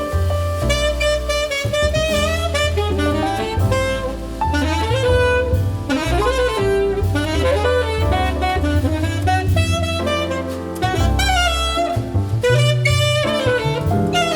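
Background jazz music with a saxophone playing the melody over a walking bass line.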